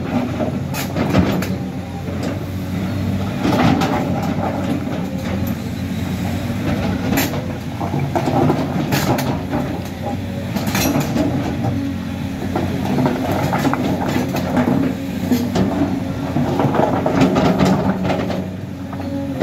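Caterpillar crawler excavator digging: its diesel engine runs steadily while the steel bucket scrapes through sand and loose paving stones, with scattered clanks and stone clatter.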